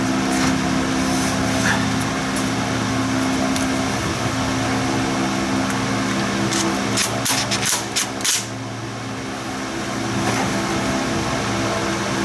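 A steady mechanical hum with a few sharp clicks and knocks of tools against the transmission pan bolts, a quick run of them between about seven and eight and a half seconds in.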